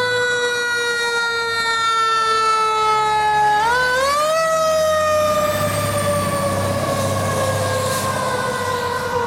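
Fire ladder truck's siren sounding as the truck pulls out, its pitch sinking slowly, climbing sharply about four seconds in, then sinking again, over the low rumble of the truck's engine.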